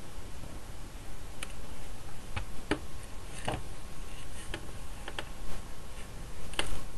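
Scattered light clicks and taps, about nine in all at irregular intervals, from hands handling a clear acrylic stamp block and a folded paper card.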